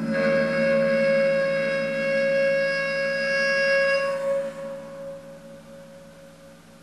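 A homemade metal instrument bowed with a violin bow, sounding one sustained pitched note. The bowing stops about four seconds in, and the note rings on, fading away.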